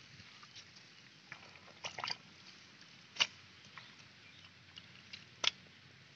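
Hands working through wet mud and shallow muddy water, with a few short squelches and splashes; the sharpest come about three seconds in and near the end.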